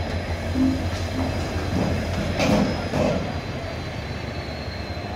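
Derailed Indian Railways passenger coach moving slowly along the rails as it is hauled back onto the track: a steady low engine rumble with metal grinding and a faint high wheel squeal, loudest about two and a half seconds in.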